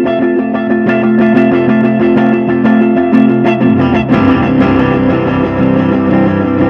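Background music led by guitar; the sound grows fuller, with more low end, about four seconds in.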